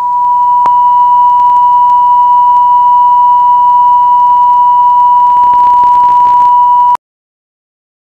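A television broadcast test tone: a loud, steady 1 kHz sine-wave beep, the reference tone carried with colour bars. It holds one unbroken pitch and cuts off abruptly about seven seconds in, with faint crackle beneath it.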